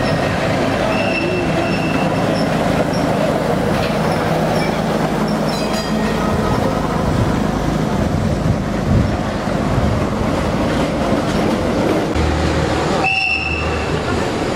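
Historic trams rolling slowly through a curve of street track, their steel wheels briefly squealing on the rails about a second in and again near the end. A truck's diesel engine runs steadily through the first half.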